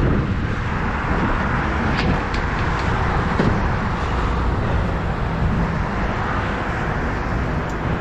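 Steady noise of road traffic, with a few light clicks about two and three seconds in.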